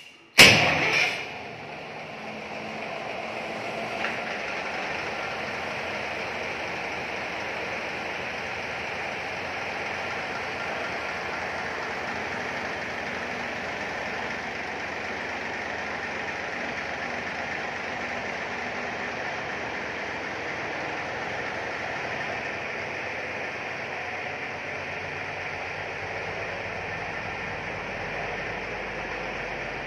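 A sand barge's diesel engine is started with the key and fires with a sudden loud burst about half a second in, then settles into steady running.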